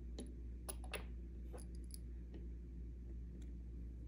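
A handful of small, sharp clicks as a small screwdriver meets the screw and plastic housing of a Toyota cruise control stalk being closed up, mostly in the first two seconds, over a faint steady low hum.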